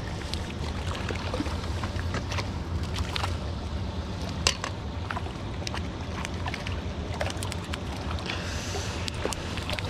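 Outdoor ambience: a steady low rumble of wind and moving water, with scattered sharp clicks and a hissing swell near the end.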